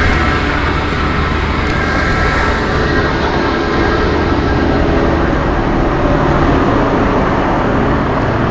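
An engine running steadily under a loud, even rushing noise; its low hum fades about a second in.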